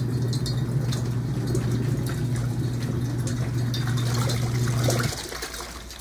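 Costway twin-tub mini washing machine agitating a wash load: a steady motor hum under water and laundry sloshing in the wash tub. The hum stops abruptly about five seconds in.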